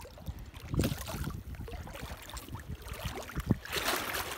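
Hooked picuda splashing and thrashing at the surface of shallow river water at the end of the line, with bursts of splashing about a second in and again near the end. Wind buffets the microphone throughout.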